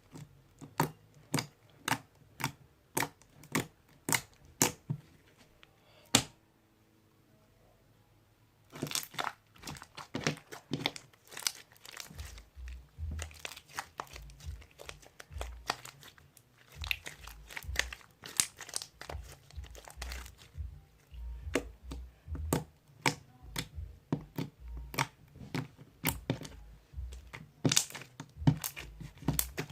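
Crunch slime being pressed and squished by hand, crackling and popping. It opens with a run of single sharp pops about two a second, goes quiet for a couple of seconds, then turns to dense, continuous crunching with soft low squelchy thuds.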